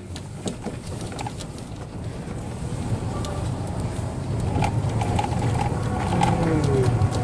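Golf cart driving over stone paving: a low rumble from the tyres with scattered rattles and knocks, growing louder toward the end.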